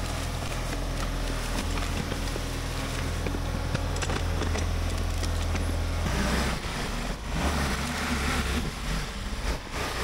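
Ford 555 backhoe's engine running steadily while the backhoe arm pushes brush onto a pile, with scattered cracks and snaps of branches. About six seconds in, the engine note changes.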